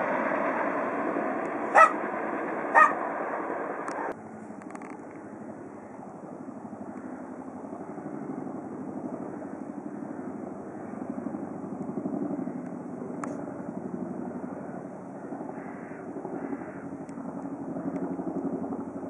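Boeing CH-47 Chinook tandem-rotor helicopters. Loud rotor noise with two sharp knocks gives way, at an abrupt cut about four seconds in, to a quieter, wavering drone from two Chinooks flying at a distance.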